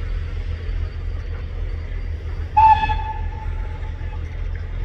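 A train's whistle gives one short toot about two and a half seconds in, its note ringing on briefly as it fades, over a steady low rumble of railway engines.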